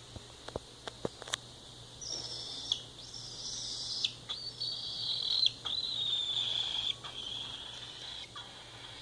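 Cockatiel screaming while being petted: a run of long, high calls, several drawn-out notes one after another, after a few light clicks of handling.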